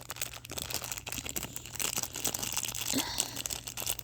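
Plastic packaging crinkling as a Nendoroid face plate is worked out of it, a steady run of small crackles.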